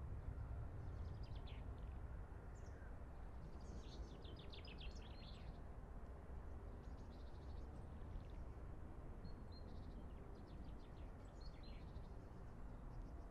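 Small songbirds chirping and singing in several short phrases of quick, high notes, the densest run about four seconds in, over a faint, steady low background rumble.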